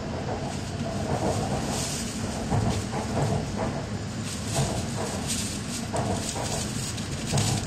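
Running noise of a Hokuriku Shinkansen train heard inside the passenger cabin: a steady low rumble with scattered short knocks and rattles.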